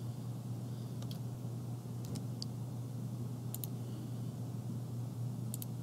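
A handful of short, sharp computer mouse clicks at irregular intervals, some doubled, over a steady low hum.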